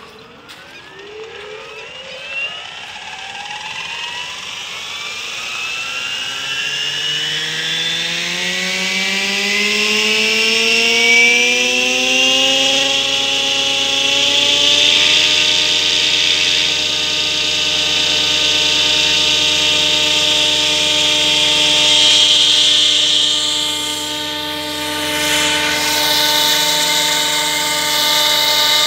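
Electric radio-controlled scale helicopter (T-Rex 700 DFC mechanism) spooling up: the motor and rotor whine rises steadily in pitch and loudness for about fifteen seconds. It then holds at a steady pitch, at flying headspeed, as the helicopter lifts off and hovers.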